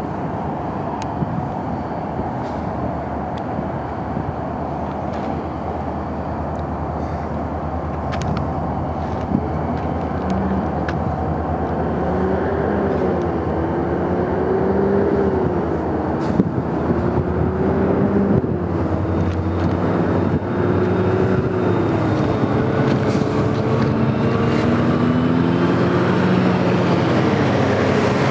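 Union Pacific diesel locomotives approaching, their engines running with a low drone and wavering tones that grow louder. A faint high whine rises in pitch from about halfway through.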